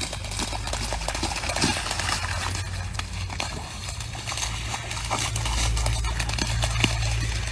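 Irregular clicks and knocks over a steady low rumble that grows louder about two thirds of the way through.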